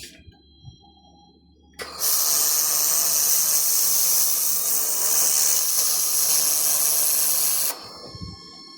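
1500 W laser welder firing a weld: a loud steady hiss that starts suddenly about two seconds in and cuts off about six seconds later.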